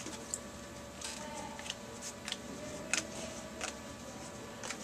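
Baseball cards being handled: a few light clicks and flicks of card stock as cards are moved and shown, over a faint steady hum.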